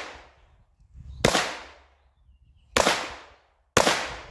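Zastava M84 Scorpion firing .32 ACP: three single semi-automatic shots about a second apart, each dying away in a short echo.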